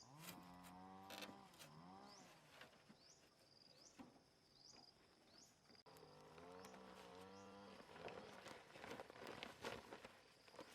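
Faint outdoor sounds: a short high chirp repeating about twice a second, two drawn-out pitched calls from a voice or an animal, and scattered clicks and taps.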